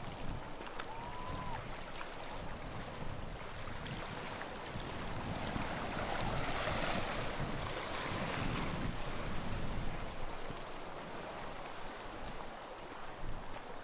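Sea waves washing onto the shore in a steady wash, one wave swelling louder and receding from about six to nine seconds in, with light wind on the microphone.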